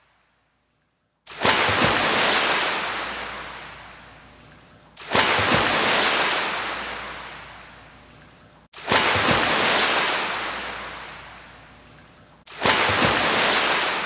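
Recorded ocean surf: waves breaking four times, about every four seconds, each one starting suddenly and fading away, beginning about a second in.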